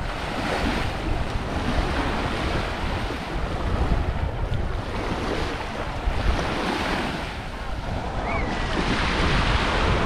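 Small waves washing up and running back on a sandy shore, swelling and easing every second or two, with wind rumbling on the microphone.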